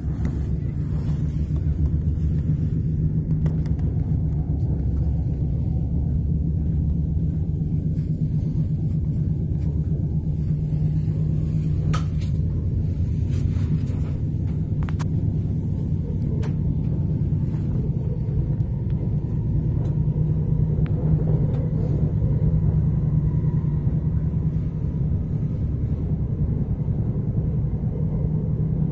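Steady low rumble inside the passenger car of a Lastochka (Siemens Desiro RUS) electric train running at speed, with a few faint clicks.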